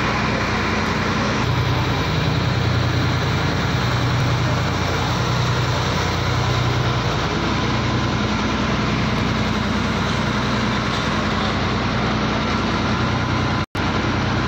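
A river ferry's engine running steadily: a low, even throb over a constant rush of noise. It breaks off for an instant near the end.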